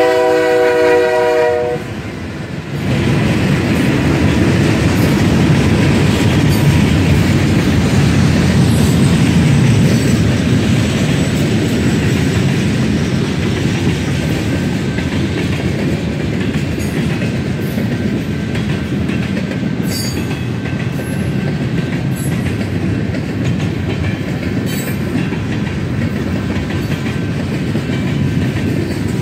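A BNSF freight locomotive's horn sounds a multi-note chord that drops slightly in pitch and cuts off about two seconds in. The train's freight cars then roll past with a loud, steady rumble and occasional clicks of wheels over the rail joints.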